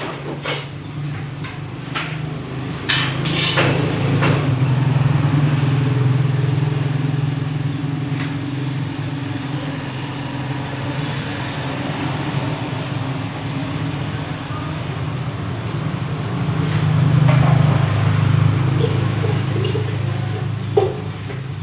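A motor running steadily with a low hum that swells twice, and a few sharp knocks in the first few seconds.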